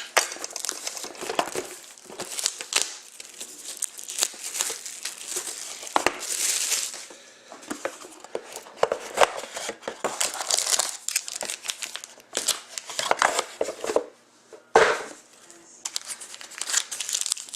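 Packaging of a sealed box of hockey trading cards being torn open and crumpled by hand: irregular crinkling and tearing with scattered sharp clicks and rustles.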